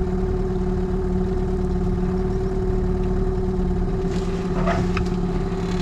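Small boat outboard motor running steadily at low trolling speed, an even hum that holds one pitch throughout.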